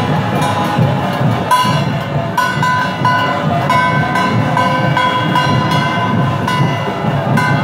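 Procession music: drums beating a steady rhythm with sharp, regular strokes, under a shrill wind instrument holding long high notes.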